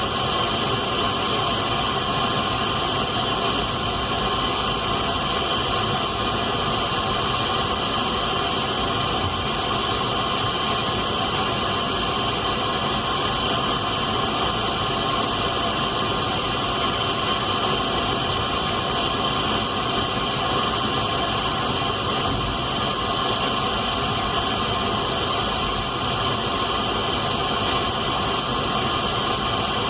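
Radio static: a steady, unchanging hiss with a few faint steady tones running through it.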